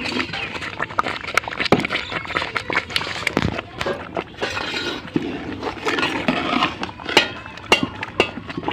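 Metal spoon stirring thick porridge in a large aluminium pot, with irregular clicks and knocks as it strikes the pot, mixing in sugar that has just been added.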